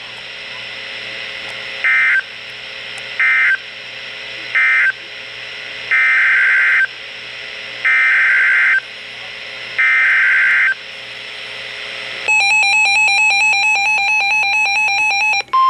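Emergency Alert System SAME data bursts: three short screechy bursts (the end-of-message code), then three longer bursts of about a second each (the header of the next alert), over a steady radio hiss that grows louder. About 12 seconds in, a harsh buzzing two-tone EAS attention signal starts and runs for about three seconds.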